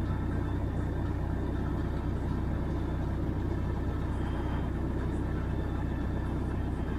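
Steady low rumble of an idling car engine, heard from inside the car.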